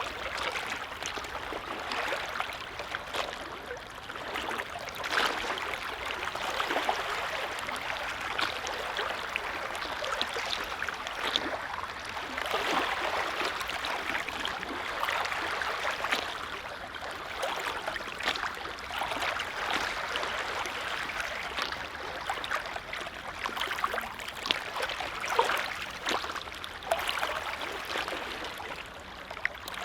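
Small lake waves lapping and splashing: an uneven wash of water with many little splashes, swelling and easing every few seconds.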